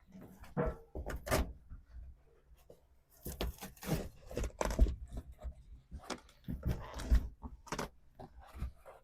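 Irregular knocks, scrapes and rustling as interior pieces of a 1966 Mustang are pried and torn out, coming in two busy bursts about three seconds in and again near the end.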